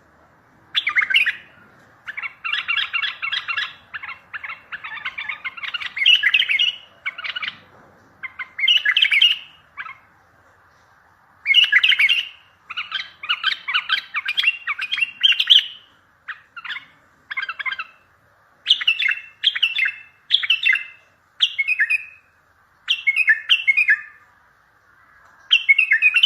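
Bulbul singing loud, short, bubbly phrases of chirps, repeated again and again with brief pauses between them.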